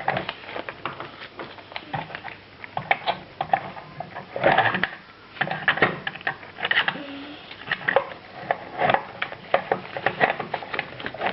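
Small plastic toy pieces clicking and rattling as they are handled and packed into a plastic toy fridge: a quick, irregular run of taps and clacks.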